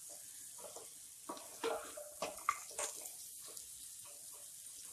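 Cluster beans frying in masala in a kadai with a steady sizzle, stirred with a wooden spatula that scrapes and taps against the pan again and again.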